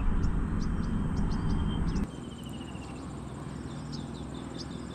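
Outdoor marsh ambience: birds chirping repeatedly and a rapid trill, with a low rumble on the microphone that stops abruptly about two seconds in.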